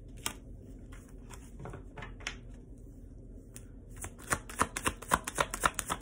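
Tarot cards being handled: a card or two laid down with soft taps, then from about four seconds in a quick run of clicks, about four or five a second, as the deck is shuffled by hand.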